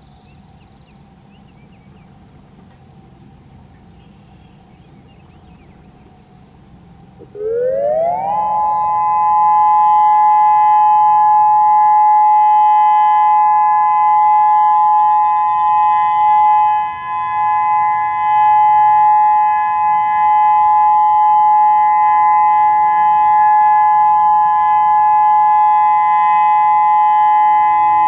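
Federal Signal Modulator 6024 dual-tone outdoor warning siren starting up: about seven seconds in it comes on, rises in pitch over about a second, then holds a loud steady two-tone alert signal, with one brief dip in level partway through.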